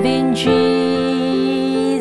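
A woman singing a slow Christian worship song, holding a long note over an electric keyboard accompaniment.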